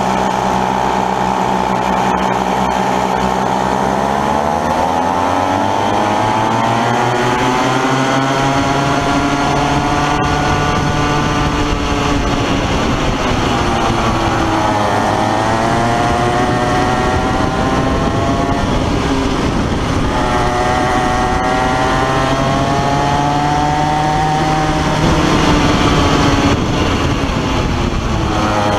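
Comer two-stroke Kid Kart engine at racing speed, heard close up from on board the kart. Its pitch holds level for the first few seconds, then climbs, and falls and rises again three times as the kart slows for corners and accelerates out of them.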